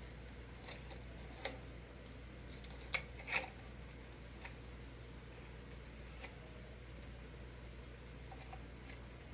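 A few light clicks and clinks of glass light shades being handled and fitted on a ceiling fan's light kit, the loudest two close together about three seconds in.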